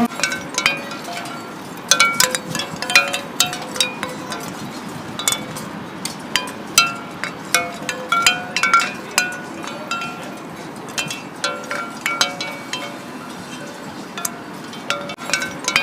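Light metallic clinking and chiming: many irregular strikes, several a second at times, each ringing briefly at a few set pitches.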